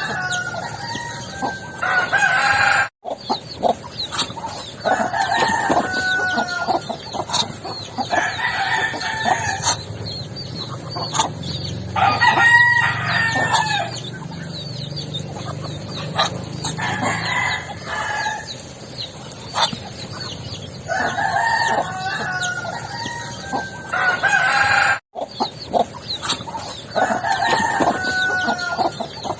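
Backyard roosters crowing again and again, a long call every few seconds, with clucking and small chirps between the crows. The sound drops out for an instant twice.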